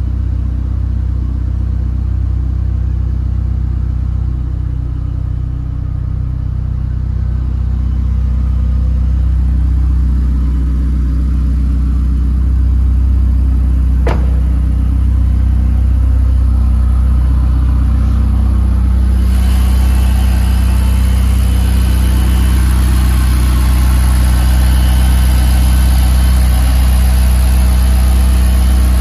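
Ferrari 488 Pista's twin-turbo V8 running steadily with a deep, even hum, growing slightly louder through the first half. There is a single sharp click about halfway through.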